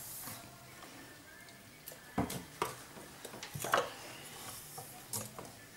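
A spoon knocking and clinking lightly against a stainless steel mixing bowl as marshmallow fluff is spooned in: four short knocks, spaced irregularly, starting about two seconds in.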